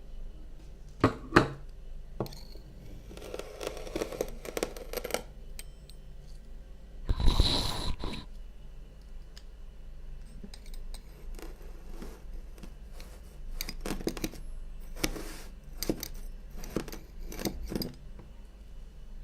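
Kinetic sand being cut and crushed: a series of separate crunches, scrapes and sharp taps, the loudest about seven seconds in.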